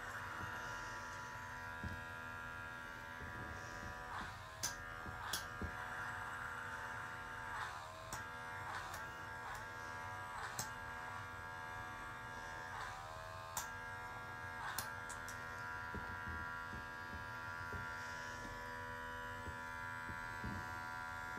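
Handheld electric facial pore vacuum running with a steady high buzzing whine, its pitch dipping briefly several times, each dip with a small click.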